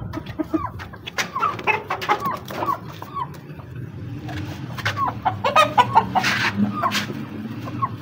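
Chickens clucking and squawking in many short, falling calls while a rooster is caught by hand, with sharp knocks and a louder burst of rustling about six seconds in.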